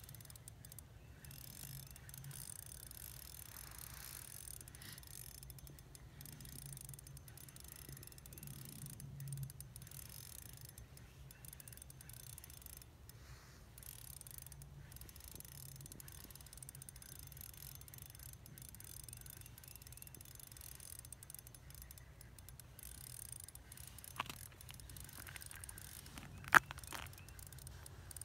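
Faint open-air background with light handling of an ice-fishing rod and reel, and two sharp clicks near the end, the second much louder.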